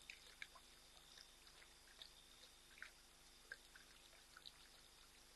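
Lioness lapping water: faint, irregular wet clicks and drips, over a faint steady high whine.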